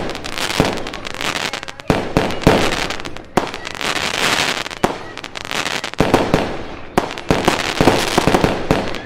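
Fireworks going off: a rapid run of sharp bangs, several a second, with dense crackling between them and no pause.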